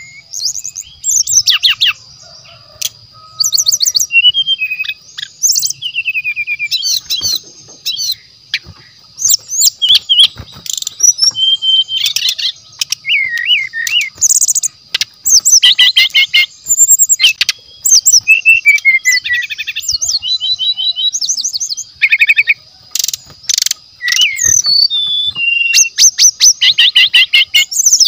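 Brown-chested jungle flycatcher singing loudly and continuously: a varied string of rapid trills, whistled up-and-down slurs and chattering phrases with short pauses between them. A thin steady high tone runs underneath.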